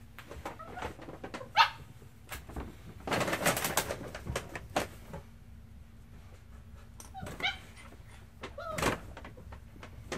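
Smooth collie puppies at play, giving several short yips and whiny calls. For about a second and a half, a few seconds in, there is a louder stretch of scuffling noise.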